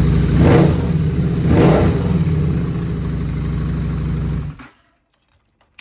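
Engine revving twice in quick succession, then running steadily before cutting off suddenly.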